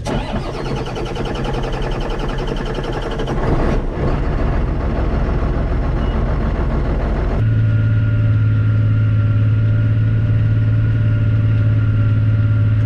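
Tractor engine being cranked over for about three and a half seconds, then catching and running as it restarts after dying, which the owner puts down to a plugged fuel filter. A little past halfway the sound changes abruptly to a steady engine hum.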